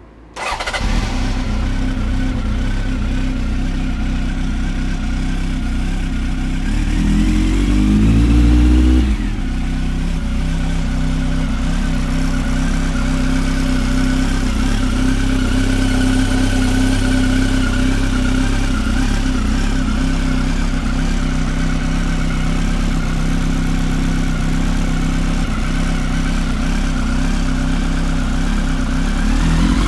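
Honda CB1300 inline-four motorcycle engine running hot, with its bent intake valve repaired. It idles steadily, is revved once for about two seconds about seven seconds in and drops straight back to idle, then begins to rev again near the end.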